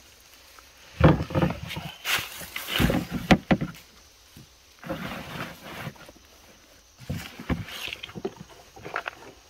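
Rustling and crunching of a leafy bundle of freshly picked fern shoots being pushed into a green plastic basket, with knocks and scrapes of the basket being set down and handled, in several uneven bursts.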